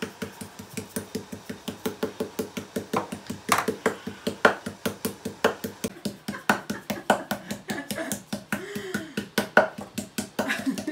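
Meat mallet pounding a pork cutlet through plastic film on a wooden cutting board. Rapid, even knocks come about seven a second, with a few harder blows among them, as the pork loin cutlet is flattened thin for breading.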